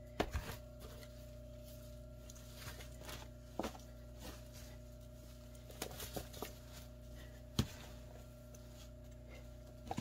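A small metal hand cultivator scraping and digging through moist finished compost in a worm bin: faint, scattered scrapes and clicks, the sharpest about three and a half and seven and a half seconds in. A steady low hum runs underneath.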